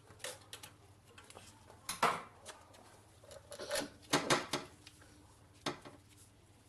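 Metal tools and engine parts clinking and knocking as they are handled during an engine teardown. The strikes are scattered: one about two seconds in, a quick cluster around the middle, and another near the end.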